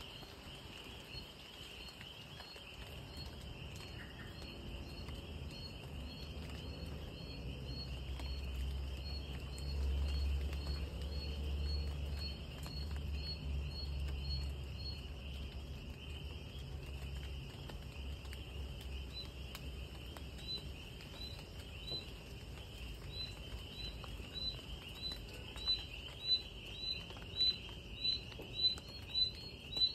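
Night insect chorus: a steady high trill with a short chirp repeating about twice a second, the chirps growing louder near the end. A low rumble sits underneath through the first half.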